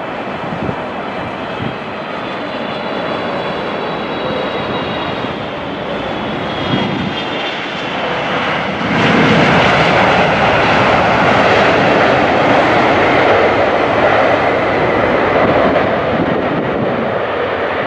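EgyptAir Boeing 777 jet engines just after touchdown as the airliner rolls out down the runway. A high whine falls in pitch over the first few seconds, then the engine noise swells sharply about nine seconds in and stays loud.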